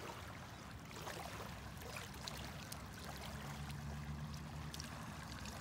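Small waves lapping faintly at a gravel lakeshore, with scattered light ticks and a low steady hum underneath.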